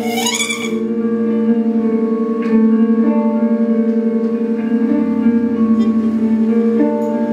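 Trumpet and electric guitar playing improvised music: low sustained drone tones with a fast flutter hold steady under higher held notes that come and go, after a rising, breathy glide in the first half second.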